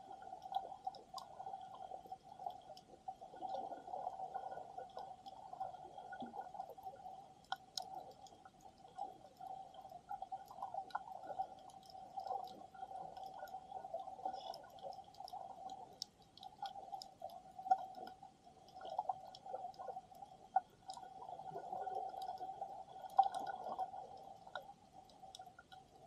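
Underwater sound picked up by a submerged camera over a shallow reef: a steady hum runs throughout, with many scattered sharp clicks and crackles and a soft wash of moving water.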